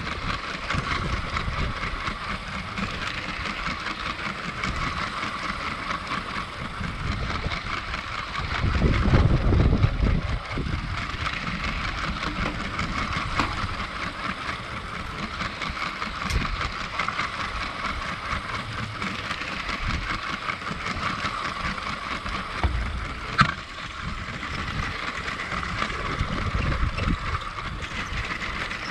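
Lego 7939 cargo train's Power Functions electric train motor whining steadily as it runs, with the wheels rattling over plastic Lego track. Irregular low rumbles come and go, strongest about nine seconds in, and there is one sharp click about two-thirds of the way through.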